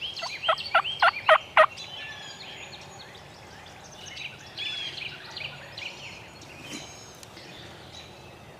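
Wild turkey gobbler gobbling once, a rapid rattling run of notes lasting about a second and a half at the start. Songbirds chirp and sing for the rest of the time.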